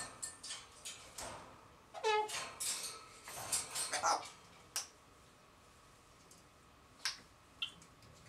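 African grey parrot making a quick string of clicks and squeaky noises, with one whistled note about two seconds in that falls steeply in pitch; after that come only a few single clicks.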